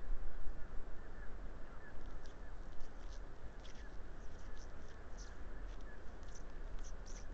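An unseen animal making many short, high squeaks or chirps, a few a second and more frequent near the end, over a steady low rumble.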